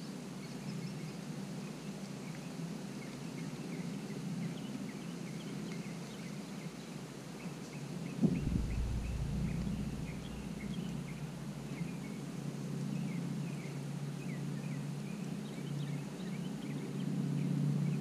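Outdoor ambience of many small birds chirping over a steady low hum. A single sharp knock about eight seconds in, after which a deep rumble sets in and grows louder toward the end.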